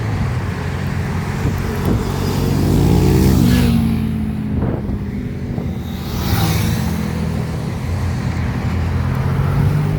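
Car engines driving past close by: one passes with its engine note falling in pitch, loudest about three seconds in, and another engine note swells again around six to seven seconds in.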